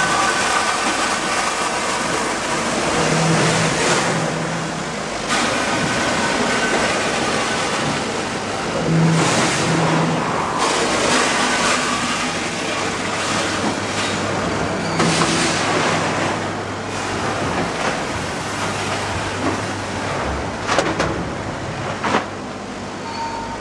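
Automatic multihead weigher and vertical form-fill-seal bagging machine running, with loose dry snack product rattling through its hoppers and chutes. A louder surge comes about every six seconds, and a few sharp clicks come near the end.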